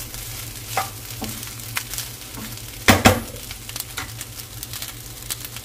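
Fried rice with crab paste sizzling in a pan as it is stirred, a utensil scraping and clicking against the pan, with two loud knocks about three seconds in.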